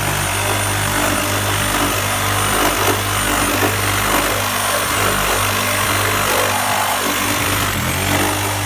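Power saw running continuously, cutting through the wooden framing.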